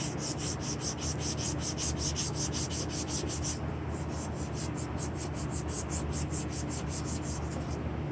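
Emery cloth rubbed quickly back and forth around a rusty transmission axle shaft, sanding it smooth for a new seal. The strokes come at about five or six a second, ease for a moment about halfway through, then resume, over a low steady hum.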